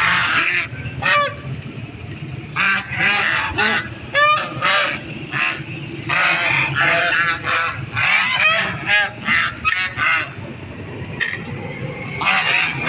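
Several ducks quacking repeatedly, short calls coming in overlapping bursts throughout.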